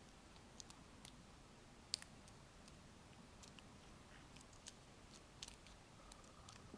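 Faint, scattered small clicks of a lock pick working the pin stack of a Master Lock No. 230 padlock under tension, the clearest about two seconds in.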